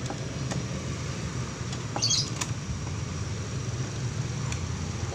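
Steady low background rumble, with a few faint clicks and a short high chirp about two seconds in.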